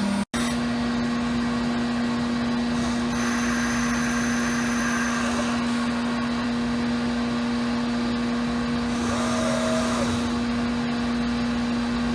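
Multicam 5000 Series CNC router running: a steady machine drone with a strong hum, cut off for an instant just after the start. About three quarters of the way through, a short tone rises, holds and falls.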